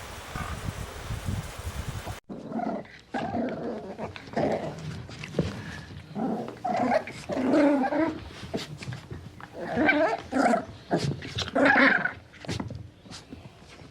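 A dog growling and whining in short, irregular bursts, starting after a sudden cut about two seconds in and loudest near the end. Before the cut there is a low rumbling noise.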